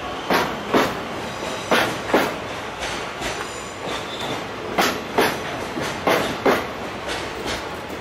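Freight train's container flat wagons rolling slowly past over jointed track. The wheels clack in quick pairs, four pairs in all, as each bogie crosses a rail joint, over a steady rolling rumble.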